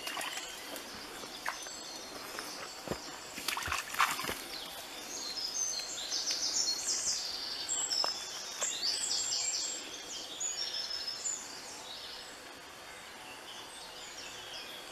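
A small songbird singing a rapid run of high-pitched notes for about six seconds in the middle, over a faint steady trickle of stream water. A few splashes in the first few seconds, from a dog wading in the shallow stream.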